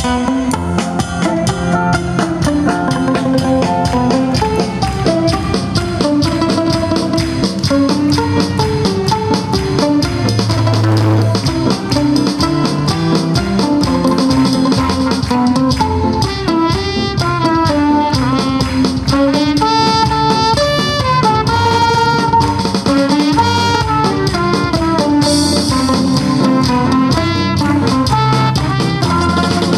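Live band playing an instrumental passage: trumpet carrying the melody over acoustic guitars and percussion.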